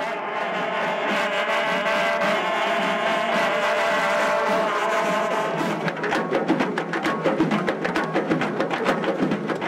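Karnay, the long Uzbek brass trumpets, played together in sustained blaring notes; about six seconds in they give way to many doira frame drums beaten in a dense run of strikes.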